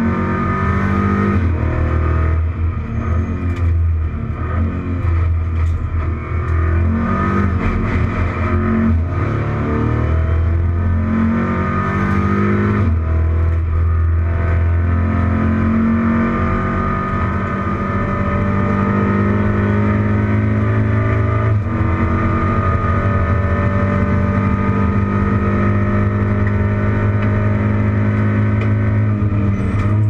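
Racing touring car's engine heard from inside the cockpit at race pace. Its pitch rises and falls through gear changes in the first half, then holds a steadier high note in the second half.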